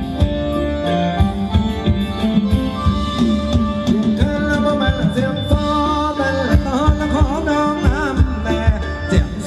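Live band playing Thai ramwong dance music: a regular drum beat under singing, with a melody line sliding up and down in pitch in the second half.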